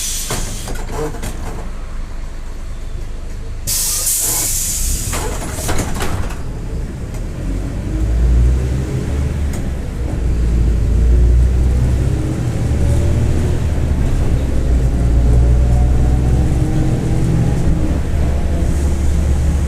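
Mercedes-Benz OF-1721 BlueTec 5 city bus: a short burst of compressed-air hiss at the start and another about four seconds in. Then the diesel engine pulls away with a rising whine that climbs with road speed, the growl of a noisy differential.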